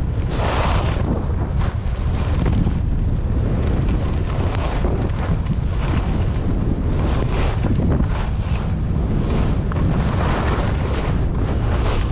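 Wind buffeting the microphone: a loud, steady low rumble, with occasional hissing swells rising over it.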